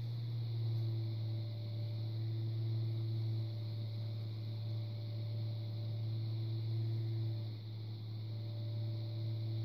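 Electric potter's wheel motor running with a steady low hum.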